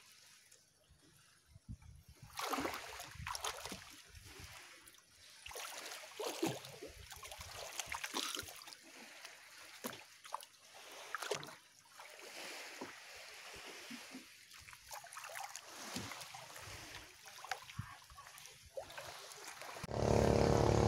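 Seawater splashing and lapping in irregular small bursts around swimmers holding an outrigger boat's float. About a second before the end it cuts to a louder, steady engine hum.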